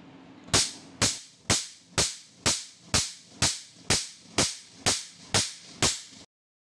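Picosecond laser with a 755 nm tip firing pulses at 2 Hz onto black test paper: twelve sharp snaps about half a second apart. The sound then cuts off abruptly.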